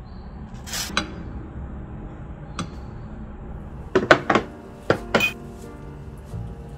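Eating noises: chopsticks clicking and clinking against a ceramic bowl of instant noodles, a few single clicks and then a quick cluster around four to five seconds in, along with noodle slurping. Quiet background music plays underneath.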